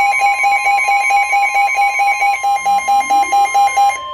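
Midland NOAA weather radio sounding an alert: the steady 1050 Hz weather-radio warning tone, with the receiver's own loud, rapidly pulsing alarm beep over it. The beeping stops near the end while the steady tone continues. The alert signals that a warning broadcast, here a flash flood warning, is about to follow.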